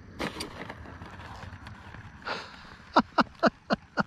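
Arrows RC MiG-29 ducted-fan model jet touching down on an asphalt runway, with a few quick knocks from its landing gear in the first half-second. Near the end come six sharp chirps, each falling in pitch, about four a second, louder than the landing.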